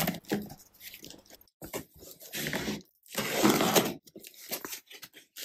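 Packaging being handled and opened: crinkling and rustling with scattered clicks, in two longer bouts through the middle.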